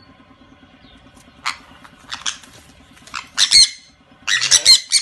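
Two sun conures squawking in shrill, harsh calls while they scuffle. A few short squawks build to louder, longer bursts in the last second and a half.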